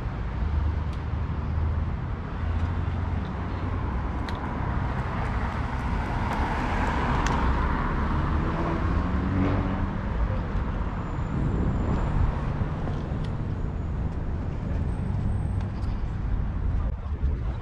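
Street and traffic noise heard from a moving bicycle, with wind rumble on the microphone. The noise swells for a few seconds in the middle.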